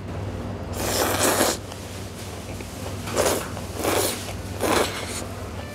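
A person slurping chewy jjolmyeon noodles: one long slurp about a second in, then three short slurps about a second apart near the end.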